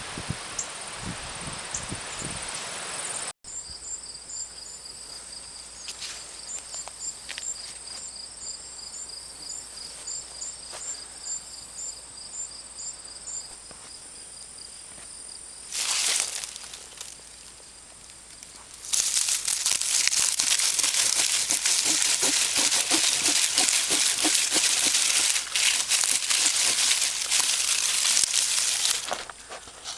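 Rustling and crackling of dry pumpkin vines and leaves being pushed through, loudest and densest over the last third. In a quieter stretch before that, a high chirp repeats evenly in the background.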